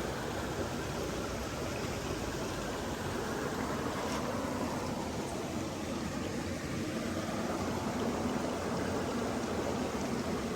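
Water running steadily in a stream, an even rushing sound with no breaks.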